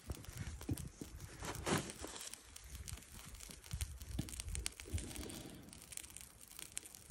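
Cloth Crown Royal bag rustling as a small wire grill grate is slid out of it and handled, with a few light metal clicks and scrapes from the grate.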